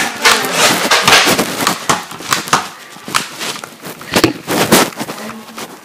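Sharp, irregular clacks and thumps of a close-range Nerf blaster fight. They come thick and fast for about the first two seconds, then as a few scattered single hits.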